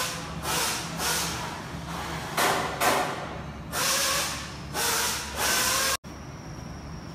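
Assembly workshop noise: a steady low hum with repeated loud hissing bursts, about six of them, each lasting a fraction of a second to half a second. The sound cuts off abruptly near the end to a quieter, even background.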